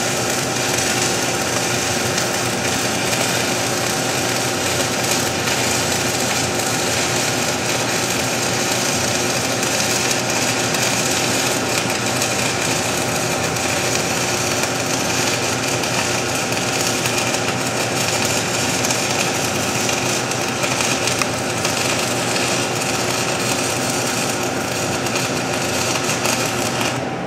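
Stick welding arc from a 6010 electrode on steel, run as a straight drag bead without a whip: a steady, harsh crackle and sizzle with a steady hum underneath. It cuts off at the very end as the arc is broken.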